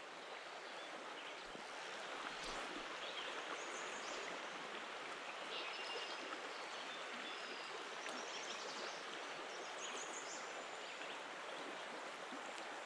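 Stream water running steadily, an even rushing.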